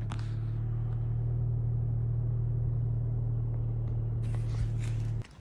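Car engine idling, a steady low hum that cuts off abruptly near the end.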